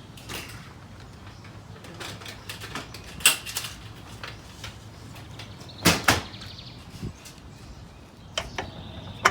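Garage door hardware being handled, giving a handful of separate knocks and clanks, with a close double knock about six seconds in.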